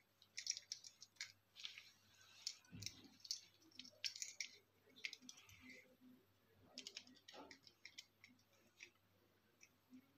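Faint, irregular small clicks and scratchy rustles of hands and a small hand tool working stiff insulated wire into the screw terminal of a plastic two-way switch.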